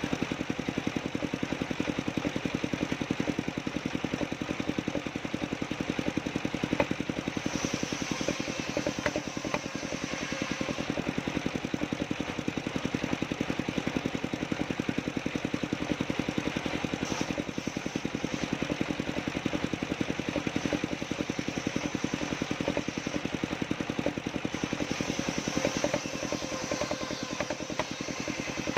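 Engine of a homemade sawmill running steadily with a rapid, even beat. A higher hiss comes in twice for several seconds, about seven seconds in and again from about seventeen seconds.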